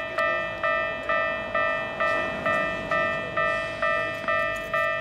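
Japanese railway level crossing warning bell sounding its alarm. It strikes steadily about twice a second, and each ringing strike fades before the next.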